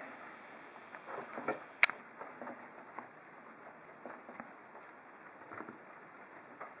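Small parts of a disassembled ASSA oval lock cylinder being handled: faint rustling and light tapping, with one sharp click about two seconds in.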